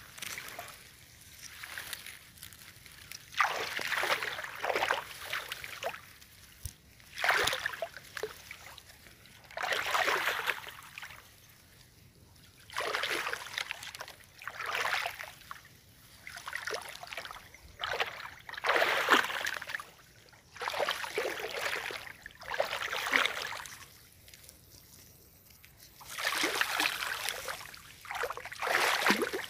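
Slow footsteps wading through shallow water and wet grass, each step a sloshing splash with the swish of stems, about one every two seconds.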